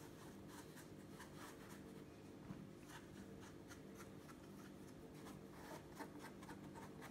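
Faint rubbing and brushing of fingertips pushing and straightening the edges of a rolled-out sheet of dough on a silicone baking mat, a series of soft scratchy strokes over a low steady hum.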